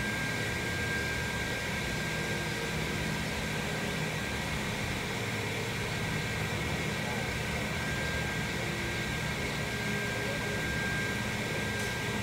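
Steady hum and even hiss of arena ventilation fans, with a couple of faint steady tones running through it.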